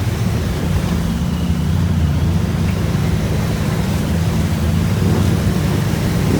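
ATV engine running at a steady speed, a loud, even low rumble.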